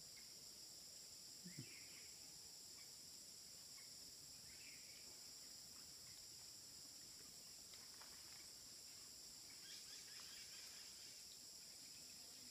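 Faint, steady high-pitched drone of insects in tropical forest, several tones held together, with faint scattered chirps and one brief low thump about a second and a half in.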